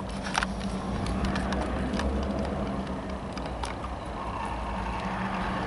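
Diesel freight locomotive GMTX 2284 running with a steady low hum as it pulls its train slowly toward the camera, with a few faint clicks.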